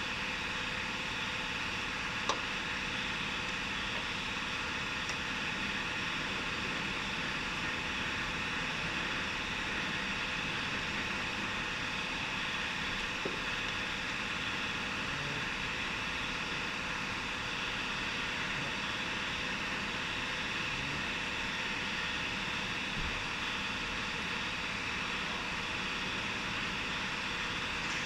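Steady machine-like hiss and hum from something running in the background, even in level throughout, with a faint click about two seconds in.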